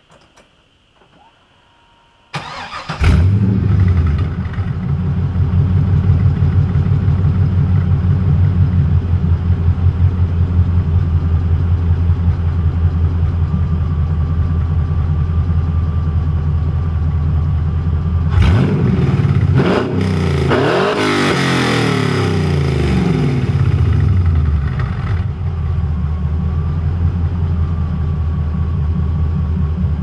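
2002 Camaro Z28's LS1 V8 on long-tube headers and true dual exhaust with Moroso spiral-flow mufflers dumped by the rear wheels, starting about two seconds in and settling into a steady, loud idle. About two-thirds of the way through it is revved, the pitch rising and falling, then drops back to idle.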